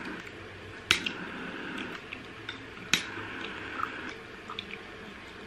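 A lighter clicking to light a candle: two sharp clicks about two seconds apart, with fainter small ticks in between.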